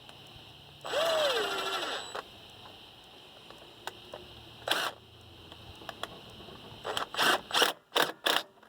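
Hand tools tightening the air-intake clamps on a 12-valve Cummins: scattered clicks and scrapes, then a run of quick clicking strokes near the end.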